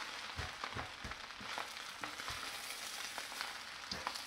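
Fried rice and vegetables sizzling steadily in a hot pan, with scattered knocks and scrapes as the rice is stirred.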